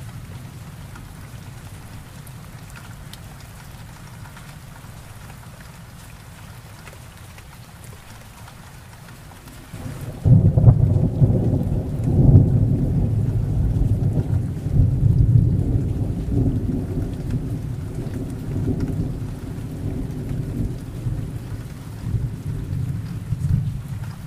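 Steady rain hissing, then about ten seconds in a long roll of thunder breaks in suddenly and rumbles on in swells, the loudest sound here.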